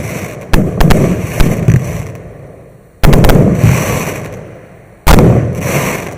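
Maxsem MC117 firework going off: a quick string of sharp cracks about half a second in, then two heavy bangs about two seconds apart, each ringing on and fading over a couple of seconds.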